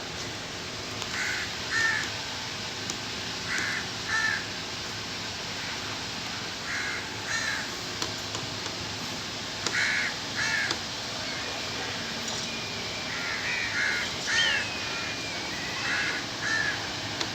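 A bird giving short, harsh calls in pairs, repeated every few seconds, over a steady background hiss.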